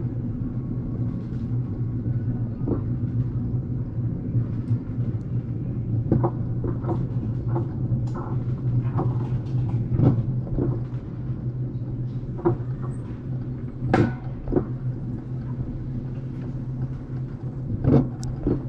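Wiegand alpine coaster sled being hauled up the lift section on its steel tube track: a steady low hum with irregular clacks and knocks from the sled's wheels and running gear.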